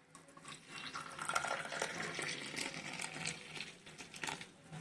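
Hot turmeric milk tea being poured from the pan into a cup, an uneven splashing pour with a few light knocks of the vessel.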